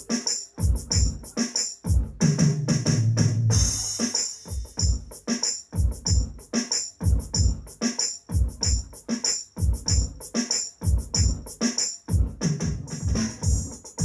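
Roland SPD-30 Octapad electronic percussion struck with drumsticks: a steady, fast groove of deep drum strokes with sharp high hits on top, and a longer low boom about two seconds in.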